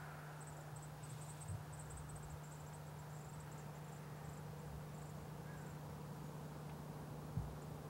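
Faint outdoor ambience: a steady low hum and hiss with scattered high-pitched chirps, mostly in the first half. Two soft thumps, about a second and a half in and near the end.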